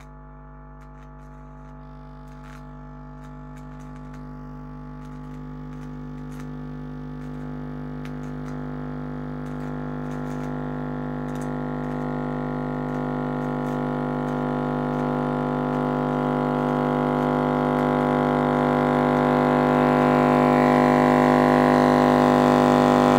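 Car speaker humming a steady low buzz with many overtones as the voltage across it is raised from about 6 to nearly 40 volts; the hum grows steadily louder as the voltage climbs.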